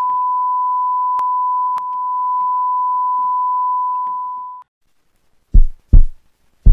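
A steady high-pitched electronic beep, a single pure tone held for about four and a half seconds with a couple of faint clicks, then cut off suddenly. After a brief silence come three heavy, deep bass-drum hits about half a second apart, opening the intro music.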